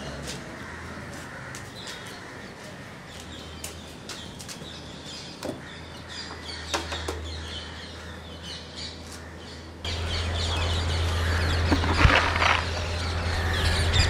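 Birds chirping and calling over a low steady hum. About ten seconds in, everything gets louder and the chirping grows busier, with several short crackles.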